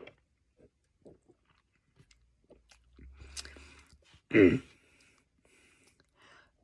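A man belches loudly about four seconds in, a short belch that drops in pitch, brought up by a chugged Coke. Before it come soft mouth clicks and smacks, and another belch starts right at the end.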